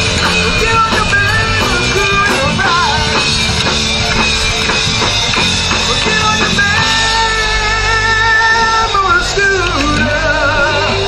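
Rock band playing live, with held, wavering lead notes, some of them sliding in pitch, over a steady bass and drums.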